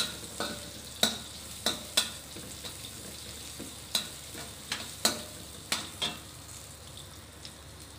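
Metal spatula clanking and scraping against a wok while sliced shallots are stir-fried in oil, over a steady sizzle. About a dozen irregular strokes, some ringing briefly, stop about six seconds in, leaving only the sizzle.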